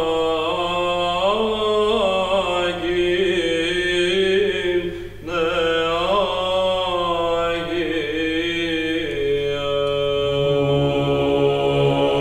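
Background music of chanted singing over a steady low drone, the voice holding long notes that slide between pitches, with a short break about five seconds in.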